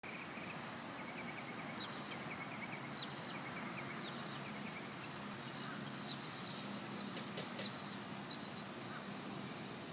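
Outdoor afternoon ambience: small birds chirping in quick short runs of notes over a steady background hiss and faint low hum.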